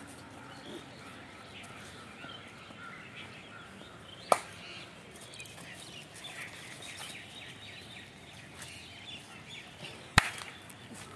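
Two sharp hand claps about six seconds apart, the coach's signal for the runners to switch sides in their stretching drill, over faint scattered birdsong.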